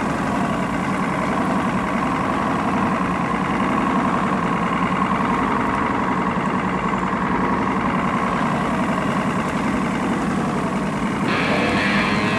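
Boat engines idling steadily in a harbour. About eleven seconds in, a brighter, higher sound with some rising and falling tones joins in.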